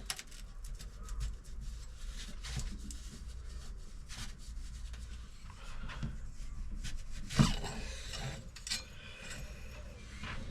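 Fork parts being handled on a KYB motocross fork's inner tube: rubbing and scraping with scattered small clicks and knocks, the loudest knock about seven and a half seconds in.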